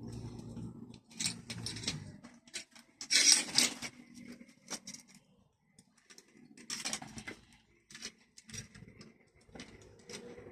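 Irregular clicks, clinks and short scraping rattles of small hard parts or tools being handled, with the busiest, loudest rattle about three seconds in and another cluster around seven seconds.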